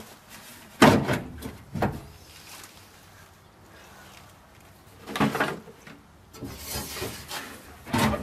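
Classic Mini's metal fuel tank being wiggled out of the boot by hand: sharp knocks of the tank against the boot's sheet metal about a second in and again a second later, a cluster of knocks about five seconds in, then a stretch of scraping and rattling.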